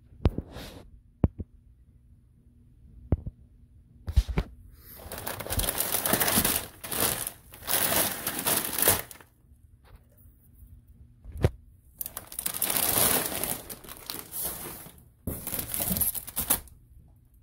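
Plastic bags of litter pellets crinkling as they are handled and lifted out of a plastic litter-box tray, in three longer stretches, with a few sharp knocks between them.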